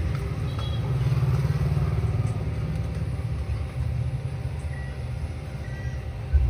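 Low, steady rumble of road traffic, which jumps suddenly louder near the end.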